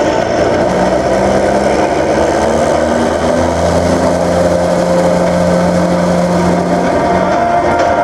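Tank diesel engines running loud and steady. About three seconds in, one engine note rises and holds for a few seconds as a tank pulls away.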